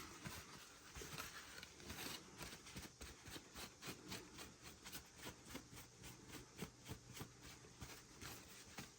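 Faint, quick rubbing strokes, several a second, as the wet-sanded body of a scale model car is wiped down by hand.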